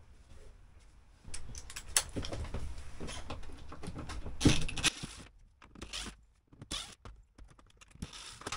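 Cordless drill-driver backing screws out of a plastic RV ceiling air-conditioner vent assembly, with clicking and rattling of screws and plastic. It runs in a longer stretch from about a second in, loudest about four and a half seconds in, then in a few short spurts.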